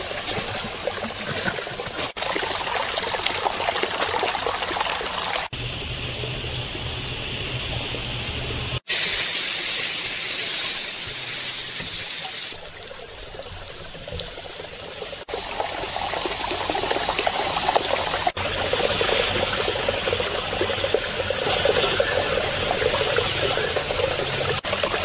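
Slices of meat sizzling in oil on a very hot stone over charcoal: a steady sizzling hiss that changes abruptly in level and tone several times.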